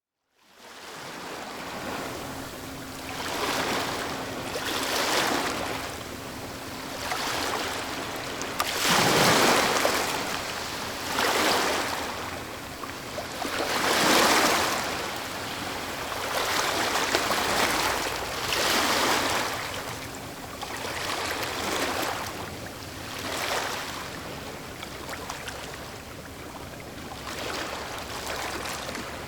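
Medium waves breaking and washing onto the shore, recorded close, rising in a surge every two or three seconds. The biggest break comes about nine seconds in and again about fourteen seconds in.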